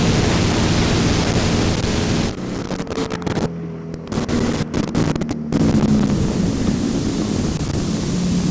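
Motorboat running steadily, with wind buffeting the microphone and water noise. The sound cuts out briefly several times around the middle: dropouts from the damaged, badly tracking videotape.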